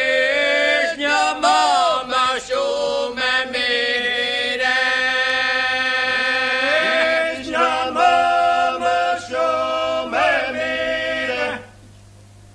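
A lone voice singing a slow, drawn-out chant with long held notes and ornamented turns. It breaks off abruptly about a second before the end.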